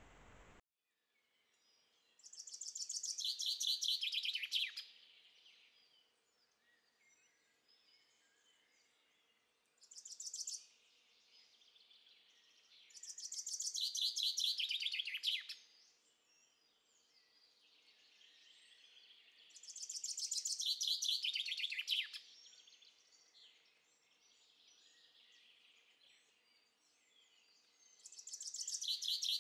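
A small songbird singing in woodland, repeating one high-pitched song phrase. Each phrase lasts about two seconds, starts high and drops lower into a fast trill. It comes five times, the second one short. Under a second in, a steady hiss cuts off abruptly.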